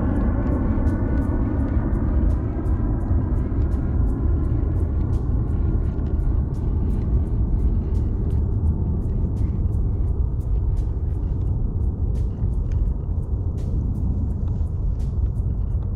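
Baitcasting fishing reel being cranked against a fish on a bent rod, ticking evenly about three times a second over a steady low rumble. A droning hum fades away over the first several seconds.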